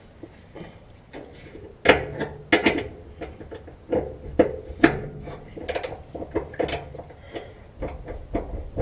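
Irregular clinks and knocks of hand tools and a socket against metal, beginning about two seconds in and going on in scattered strokes.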